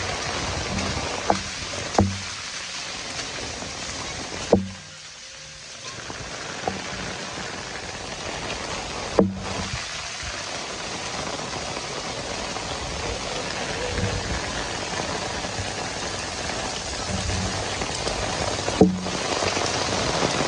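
Heavy rain falling steadily on the ground and trees. A few sharp knocks stand out from it, and the rain sound drops briefly about five seconds in.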